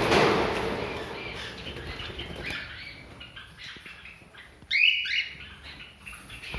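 Small caged birds fluttering their wings, then chirping in many short, high calls, with one louder call a little past the middle.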